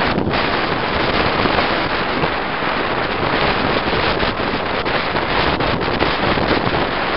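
Steady wind rush and road noise from inside a moving vehicle, with wind buffeting the microphone.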